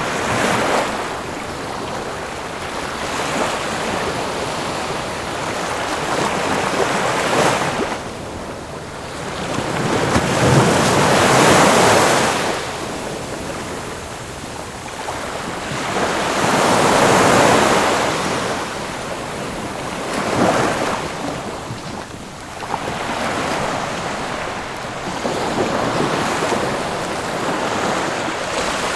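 Ocean waves breaking and washing in, a continuous surf hiss that swells and falls back every several seconds, with the biggest surges about a third and about three fifths of the way through.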